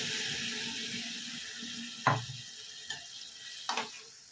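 Hot water pouring from a jug into a metal pan of okra and potato curry, a hissing splash that dies away over the first couple of seconds. Then come three clanks of utensils against the pan, the first the loudest, about two seconds in.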